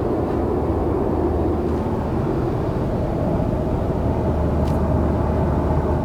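Steady engine and road noise heard inside the cabin of a 2001 Volvo S40 1.9T while driving, its 1.9-litre turbocharged four-cylinder running at an even pace.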